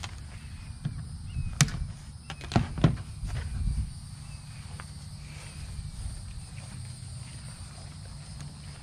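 Three sharp knocks or clacks in the first three seconds over low rustling handling noise, then steadier low rumble. A faint steady high insect drone runs underneath.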